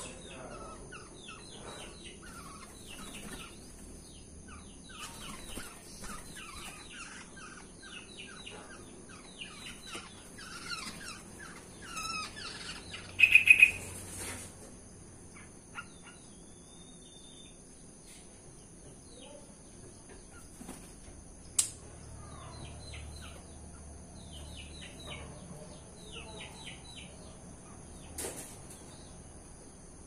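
Black-naped orioles calling in an aviary: runs of short, quick chirps, one much louder call about halfway through, then a quieter stretch before more chirps near the end. The owner takes the bird to be in breeding condition.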